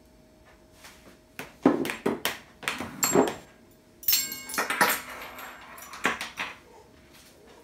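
A metal spoon knocking and scraping against a bowl. Then ceramic bowls clatter and grate against each other as one is set down on a stack and another is picked up, with a short squeal or ring in the middle of the clatter.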